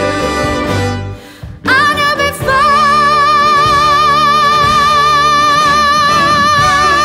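A woman's voice holds one long high sung note with vibrato over band accompaniment, starting about a second and a half in after a brief drop in the music. This is the song's climactic held note.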